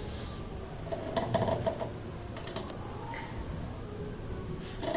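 Light clicks and rustling of a stethoscope being handled as its chestpiece is turned to open the bell. There is a cluster of clicks about a second in and a few more near the end.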